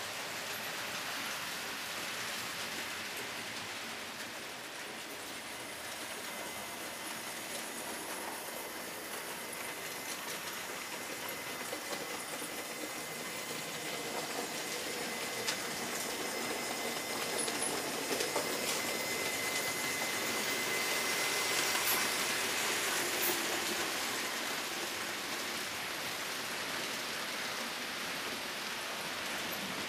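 HO-scale model trains running on a layout: a steady rolling hiss of wheels on track with a faint high motor whine. It swells about two-thirds of the way through as a train passes closer, then eases off.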